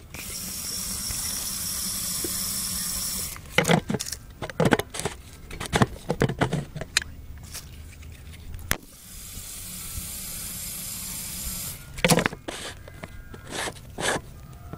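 Aerosol can spraying a steady hiss into a homemade combustion potato launcher's chamber, fuelling it for a shot. It sprays twice, each time for about three seconds, with clusters of sharp clicks and knocks between and after.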